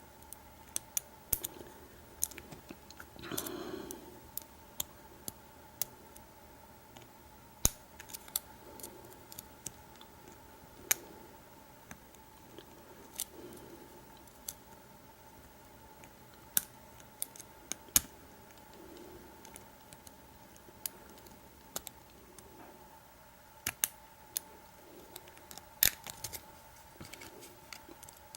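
Lock pick and tension wrench working the pin stack of an American Lock 5200 padlock: scattered, irregular sharp metal clicks and ticks, with a brief rustle about three seconds in and a faint steady hum underneath.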